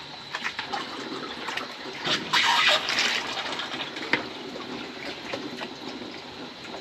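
Fermented cashew apple mash and juice sloshing and splashing as it is scooped by hand from a plastic bucket into a cheesecloth bag over a steel pot, loudest a little past two seconds in.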